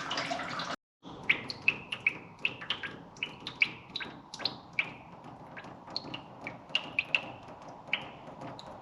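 Antifreeze dripping out of a drained cooling system into a pool of coolant: irregular, pitched plinks, about two or three a second, after a brief stretch of pouring.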